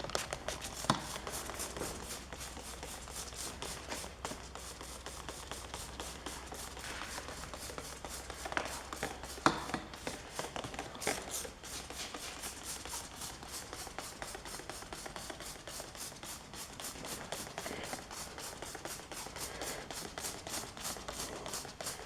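Hand trigger spray bottle pumped over and over, each squeeze a short hissing squirt of degreaser, several squirts a second.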